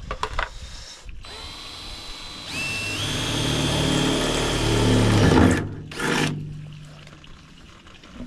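Electric drill boring holes in the van's metal bodywork. Its whine rises in pitch as it speeds up and grows louder, then cuts off about five and a half seconds in. A short second burst follows.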